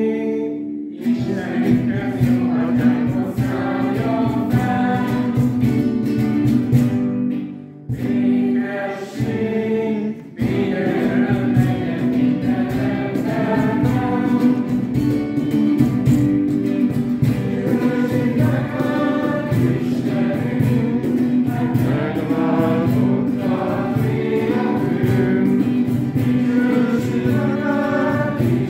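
A congregation of many voices singing a hymn together, accompanied by strummed acoustic guitar, in a reverberant church. The singing breaks off briefly twice, about eight and ten seconds in.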